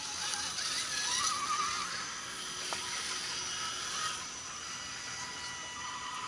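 Electric motors and geared drivetrains of scale RC crawler trucks whining steadily as they crawl over a log.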